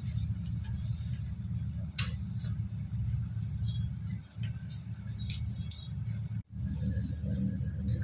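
Wet slate-pencil paste being squeezed and rolled into a ball by hand over a steel bowl: scattered small clicks and crackles over a steady low hum. The sound breaks off briefly about six and a half seconds in.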